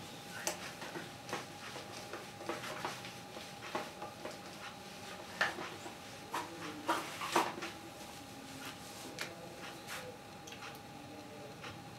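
Whiteboard being wiped clean: soft, irregular rubbing strokes, a few louder ones partway through, over a faint steady hum. Near the end a marker starts writing on the board.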